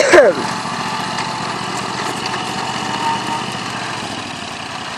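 Riding lawnmower engine running steadily. A short, loud voice sound at the very start.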